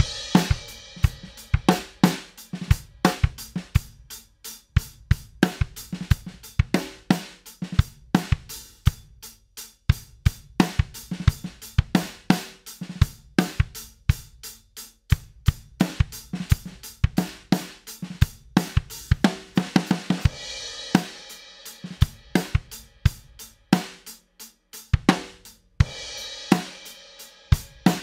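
A drum kit playing a steady groove of kick, snare and hi-hat, with cymbal crashes at the start, around twenty seconds in and near the end. It is heard both as the unprocessed dry recording and as a version squashed by about 10 dB of compressor gain reduction.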